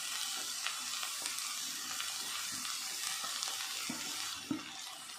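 Chopped cabbage, onion and grated carrot sizzling in hot mustard oil in a kadhai, with a wooden spatula stirring through them. The sizzle is a steady hiss, with two soft knocks near the end.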